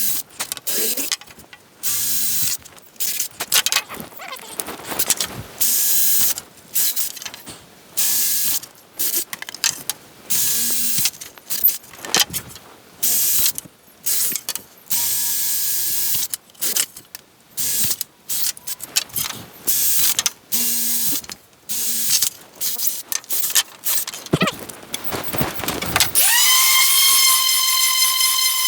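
Sanding a wooden picture ledge: short rasping passes with brief pauses between them. About 26 s in, a steady high whistling tone starts abruptly and holds.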